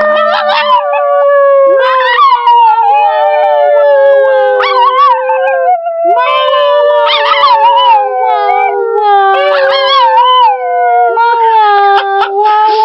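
Dogs howling together: long, drawn-out howls that slowly fall in pitch, two voices overlapping and starting new howls every few seconds.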